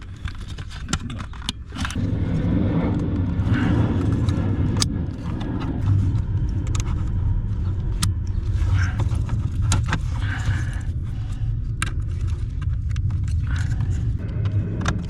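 Sharp clicks and small rattles of plastic parts and fasteners being handled and snapped into place, over a steady low rumble.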